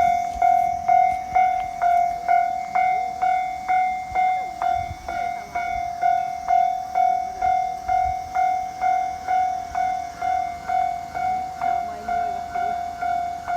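Japanese railway level-crossing alarm sounding, a ringing electronic bell struck about twice a second in an even, unbroken rhythm: the warning that a train is approaching.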